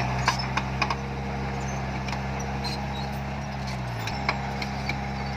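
Diesel engine of heavy earthmoving machinery running steadily, with scattered metallic clinks and rattles. The engine note dips briefly about four seconds in, then settles again.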